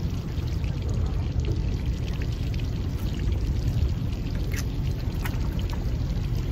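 Water splashing and sloshing against a small fishing boat at sea over a steady low rumble, with a couple of light clicks in the second half.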